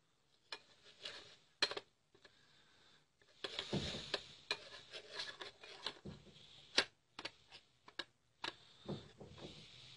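A spoon clicking and scraping against a small bowl as rose water is spooned into gram flour. Irregular taps throughout, with a denser stretch of scraping about three and a half seconds in.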